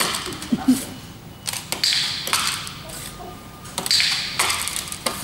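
A hen's beak pecking at dots on a plastic tabletop: a series of sharp taps about a second or so apart, some with a short rustling hiss after them.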